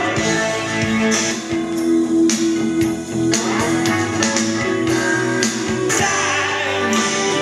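Guitar-led music with a steady beat.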